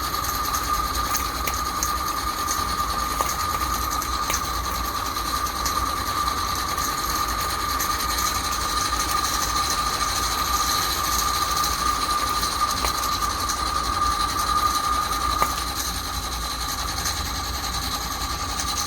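AccuCraft Ruby gas-fired live-steam locomotive running with its wheels turning freely, not pulling any load: a steady hiss of steam and mechanism with a steady high tone and faint light clicks.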